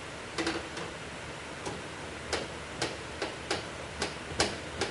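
About ten sharp clicks at an uneven pace over a steady hiss.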